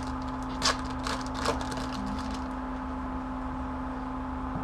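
Trading-card packs and cards being handled: three short rustles in the first second and a half, the first the loudest, over a steady electrical hum.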